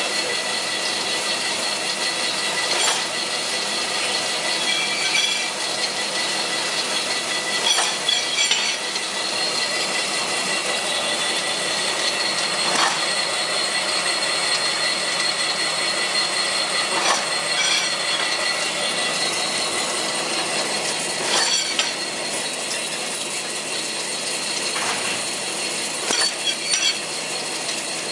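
Industrial paper interleaver and stacker running: a steady mechanical clatter with a thin high whine, and a sharp clack about every four to five seconds.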